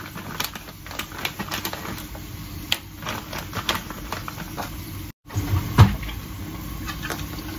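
Rock sugar being shaken from a plastic bag into a wok: irregular small clicks and crinkles over a low steady hum. The sound drops out briefly about five seconds in, then there is a single thump.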